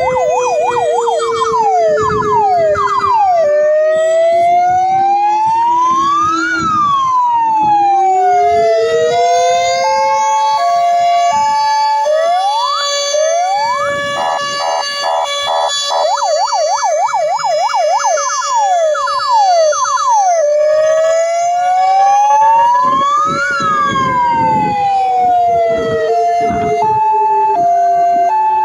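Several fire engine sirens sounding together. They cycle through slow rising-and-falling wails, fast yelps and a two-tone hi-lo, over a lower tone that slowly sinks and then climbs back.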